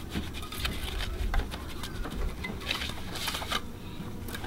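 Light clicks and scrapes of gloved hands pulling string around the necks of soil-filled plastic bottles in a bottle-brick wall, with a short scratchy rustle about three seconds in.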